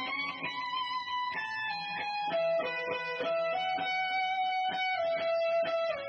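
Electric guitar playing a slow single-note melody of long held notes through a Dawner Prince Boonar, a Binson Echorec-style multi-head echo pedal, so each note is followed by echo repeats. The guitar is a Crews Strat-style ST54 with Y.O.S Smoggy pickups.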